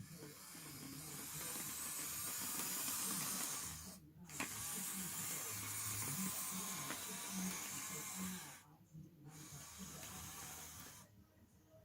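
Motors of a 3D-printed model CAT excavator running with a hissing whir in three stretches, breaking off briefly about four seconds in and again near nine seconds.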